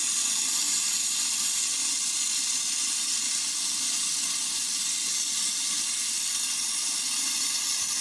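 Steady hiss of a gas torch flame playing on a copper refrigeration filter drier, heating the joints to unsolder it from the pipes.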